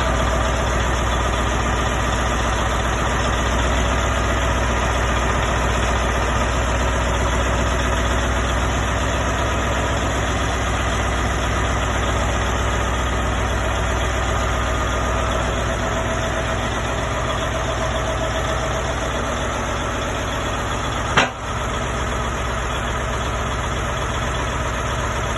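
Diesel engine of a Morbark 1100 horizontal grinder idling steadily. A single sharp knock comes near the end.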